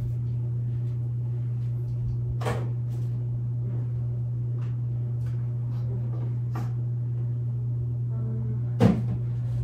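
Kitchen cupboard doors and groceries being handled while food is put away: scattered light knocks, with one louder knock near the end, over a steady low hum.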